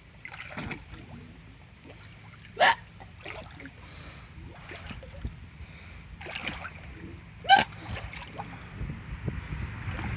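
A person hiccupping: two sharp, loud hiccups, one about a quarter of the way in and one about three quarters of the way in, with a few fainter ones between, over pool water lapping and sloshing.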